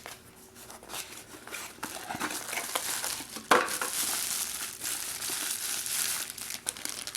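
Plastic packaging crinkling and rustling as a parts package is unwrapped by hand, growing louder partway through with a sharp crackle about halfway.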